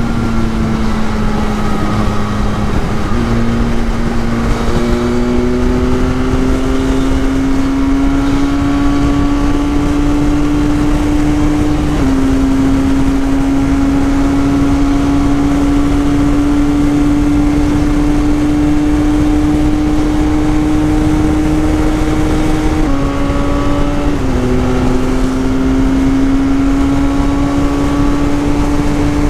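Benelli 502C's 500cc parallel-twin engine running hard at highway speed. Its pitch climbs slowly under throttle, with a few sudden small steps as revs change, over a steady low rush of wind.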